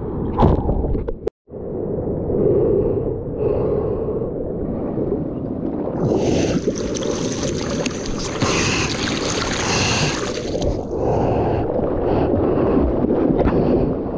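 Water sloshing and splashing around a board-level action camera as a surfer moves through the ocean, with the noise of wind and water on the microphone. The sound cuts out for a moment about a second in, and a brighter rushing hiss of water rises over the wash for about five seconds in the middle.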